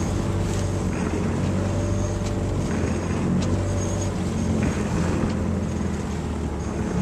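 Boat engine running steadily as a low, even hum, with wind rushing over the microphone and water washing past the hull; a few light clicks from the deck gear partway through.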